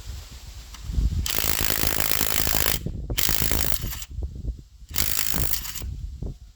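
Socket ratchet clicking in three quick runs, the first about a second and a half long and the next two shorter.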